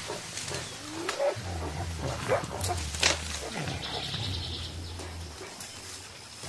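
Mountain gorillas calling to each other: about three deep, drawn-out rumbling grunts with some higher, gliding calls between them, the contact calls that keep a foraging group in touch. A few sharp clicks also sound.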